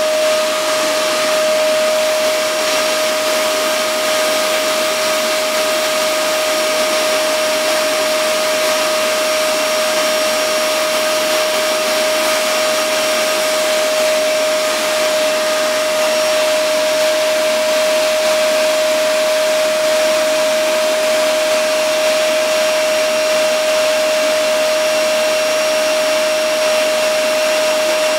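Vacuum cleaner running steadily: a constant motor whine over a rushing hiss of air.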